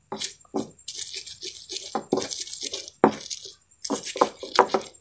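Stone pestle (ulekan) crushing and grinding chillies and shallots in a stone mortar (cobek), with irregular crunching and scraping strokes.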